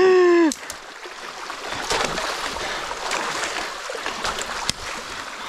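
Creek water rushing steadily through a gap torn in a beaver dam, with a few short sharp sounds scattered through. A man's voice gives a brief call, falling in pitch, at the very start.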